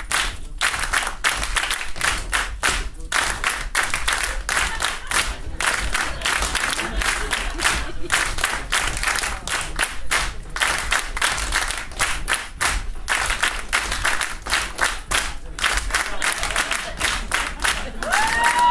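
Several tap dancers' metal-tipped shoes striking a wooden stage in fast, dense rhythms, mixed with hand clapping.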